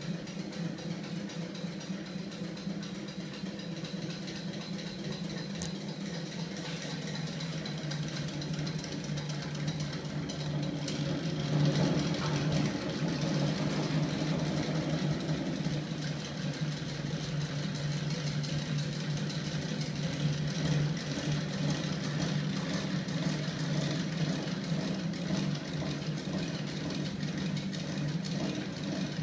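Prototype magnet-driven flywheel machine running, turned by a small electric motor: a steady mechanical hum with a low, even drone, growing louder about twelve seconds in.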